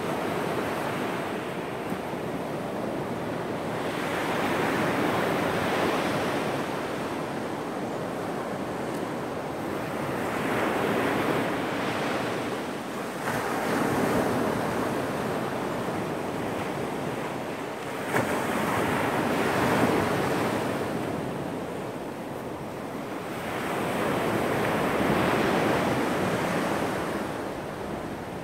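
Small ocean waves breaking and washing up a sandy beach, the surf noise swelling and fading every five or six seconds.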